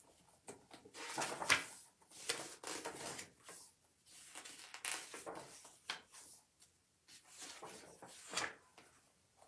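Hardcover picture book being opened and its paper pages turned and handled: a run of irregular rustles and soft knocks.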